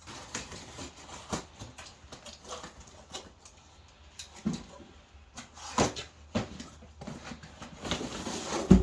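Shoe box and packaging being handled and opened: continuous rustling and scraping, with scattered clicks and a few louder knocks, the loudest near the end.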